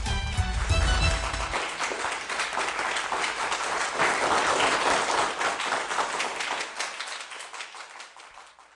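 Music ends about a second and a half in, and an audience applauds. The clapping fades away near the end.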